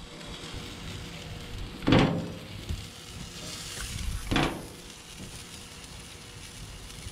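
Hot dogs sizzling on a barbecue grill grate, a steady hiss. Two brief louder sounds come about two and four seconds in.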